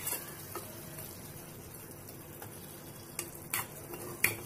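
Chicken curry with its stock just added, sizzling in a pan as it is stirred. A few sharp clicks of the spoon against the pan come near the end.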